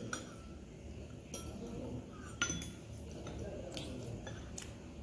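Cutlery and chopsticks clinking against ceramic bowls and plates while eating: about five short sharp clinks, the loudest about halfway through.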